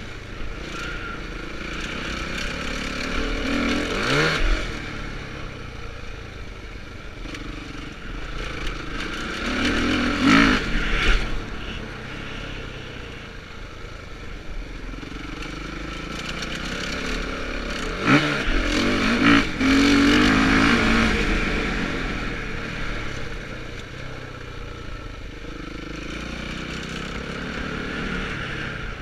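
Motocross bike's engine being ridden on a dirt track, revving up and easing off through the laps, with three louder surges of acceleration about 4, 10 and 19 seconds in.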